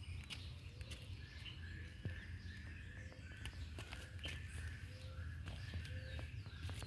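A bird calling over and over in a quick, steady rhythm of short notes, over a low outdoor rumble with scattered light clicks.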